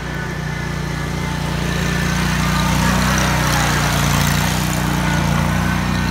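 John Deere Z930R zero-turn mower's V-twin engine running steadily, growing louder over the first few seconds as the mower comes up close.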